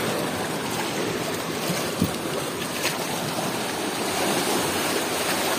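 Ocean surf washing over and around coral rocks, a steady rushing noise, with one short knock about two seconds in.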